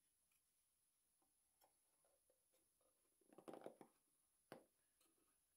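Near silence with faint wooden taps and scuffs as a quarter-inch plywood bottom panel is set into a small glued maple drawer and pressed down by hand: a short cluster of taps about three and a half seconds in, then a single click.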